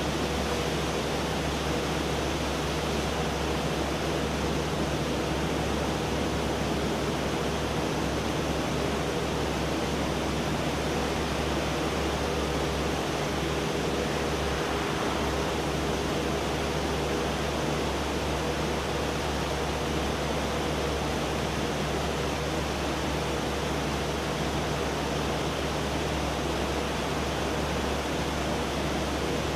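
Steady even noise of machinery running, a constant hiss with a faint low hum and faint steady tones, without change.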